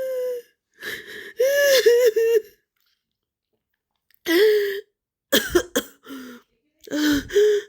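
A girl crying in broken sobs: a held wail trails off at the start, then short catching sobs with wheezy, gasping breaths come in separate bouts with pauses of a second or more between them.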